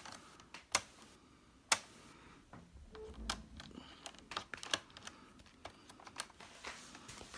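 Screwdriver working a screw out of the plastic bottom panel of a Compaq Presario CQ57 laptop: irregular sharp clicks and small ticks of the tool and screw, a few louder than the rest.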